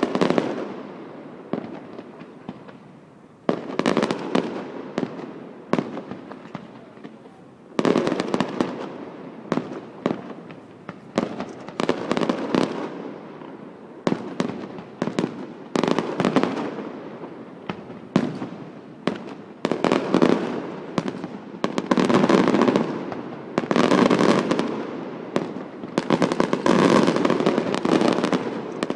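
Aerial fireworks display: shells bursting one after another with sharp bangs, each fading away. The bursts come closer together and pile up in the second half.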